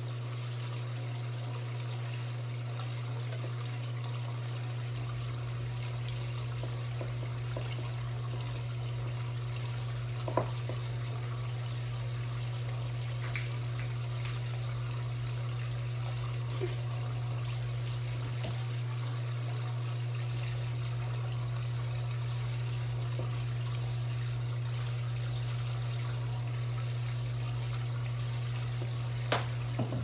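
1993 Brastemp Mondial rotary top-loading washing machine filling: water pours steadily into the tub over a constant low hum, with a couple of faint knocks.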